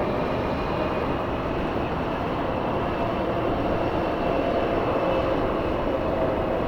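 Jet airliner engines running steadily with a faint whine, heard through strong wind.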